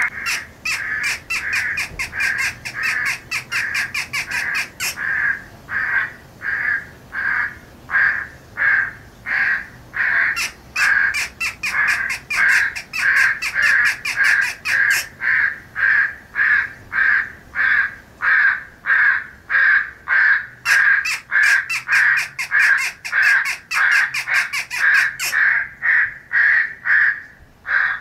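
Crows cawing over and over, about two caws a second without a break: a crow morning or feeding call sound file of the kind played through electronic game callers to draw in corvids.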